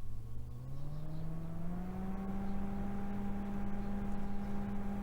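Noctua NF-R8 80 mm fan spinning up: its hum rises in pitch over about two seconds, then holds steady at full speed as a whir with a clear tone and overtones.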